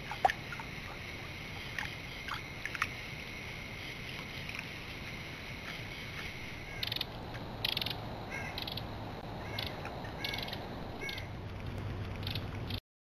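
Night insects calling at a creek: a steady high trill, then from about seven seconds in a run of short rasping calls repeated every half second to a second. A few sharp clicks come in the first three seconds, and the sound cuts out briefly just before the end.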